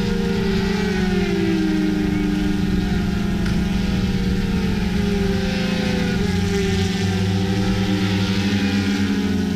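A Yamaha R1S sport bike's engine runs as the rider sets off from the pits, its pitch sliding down and up several times over a steady drone.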